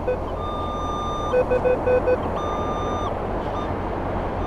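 Minelab Equinox 800 metal detector sounding target tones as the coil sweeps a small target: a held high beep twice, with a quick run of short lower beeps between, over a steady hiss. The target reads about 10 to 12, which the detectorist takes for stainless steel.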